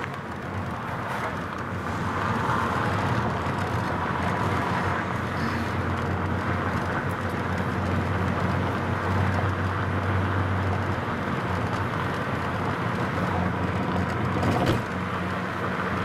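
Car driving, heard from inside the cabin: a steady engine hum over road and tyre noise, with a single short knock near the end.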